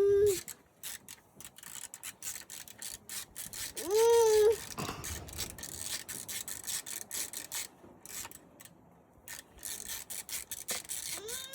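Quick, repeated scraping and rasping strokes, like a hand tool rubbed or filed against a hard surface, with short rising-then-falling vocal calls at the start and about four seconds in.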